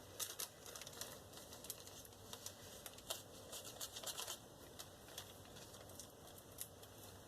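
Neon yellow glitter being shaken out of its container into clear glue, making faint, irregular light ticks and patter.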